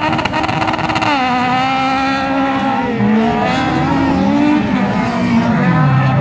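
Several autocross race cars' engines running hard at once, their notes rising and falling as the drivers accelerate and lift on the dirt track. Near the end one engine drops low and then climbs again.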